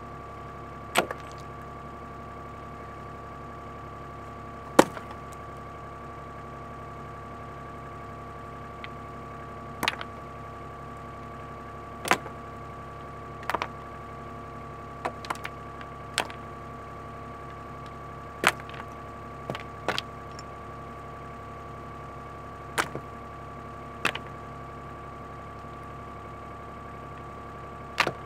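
Excavator engine running steadily with a high, even whine, broken by a dozen or so sharp knocks at irregular intervals, the loudest about five seconds in.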